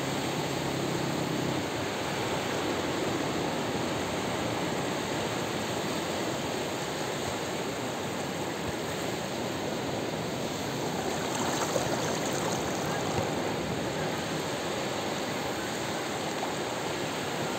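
Ocean surf breaking and shallow seawater washing over a sandy beach: a steady rushing wash, swelling slightly about two-thirds of the way through.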